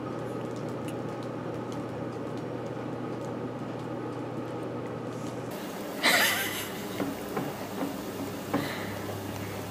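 A steady low hum with faint background noise. About six seconds in, after the background changes, there is one loud short noisy burst, followed by a few softer short sounds.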